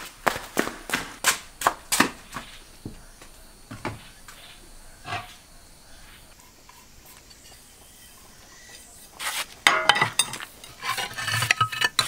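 Dried tomato pieces and stoneware being handled: a run of light clicks and knocks, a quiet stretch, then a dense rattling clatter near the end as the pieces are gathered off a slate tray into a clay pot.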